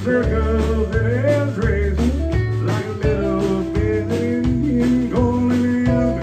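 Live country band: a man singing into the microphone over strummed acoustic guitar and fiddle, with low bass notes underneath.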